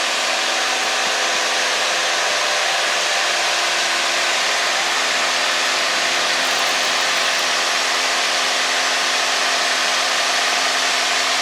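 Single-engine Cessna's piston engine and propeller droning steadily at a constant power setting in level flight, with rushing air noise, heard inside the cabin.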